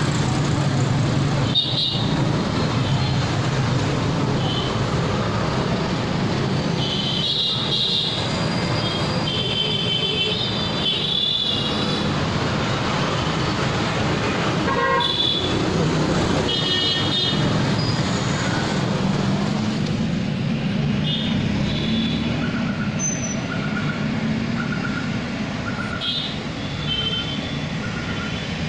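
Busy bus-stand traffic: engines running with a constant low rumble and vehicle horns tooting repeatedly. In the last third a short beep repeats about once a second.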